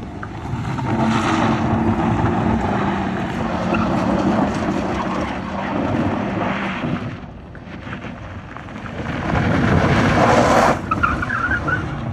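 Suzuki Swift hatchback drifting in circles on loose dirt: the engine is held at high revs while the spinning tyres scrabble and spray dirt. It eases off around seven seconds in and surges louder again near the end.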